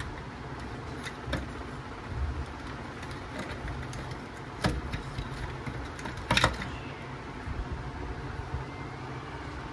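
Handling noise: a few short sharp clicks, the loudest about four and a half and six and a half seconds in, over a steady low background hum.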